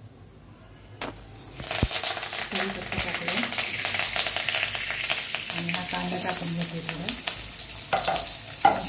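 Chopped green chillies and other pieces dropped into hot oil with cumin in a metal kadhai: a knock about a second in, then loud, steady sizzling with stirring. A couple of sharp knocks near the end as chopped onion goes in, and the sizzling carries on.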